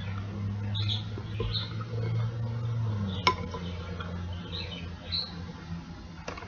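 Close-up eating sounds: small wet smacks and squeaks of chewing, with a sharp click a little after 3 seconds, over a steady low hum that fades about halfway through.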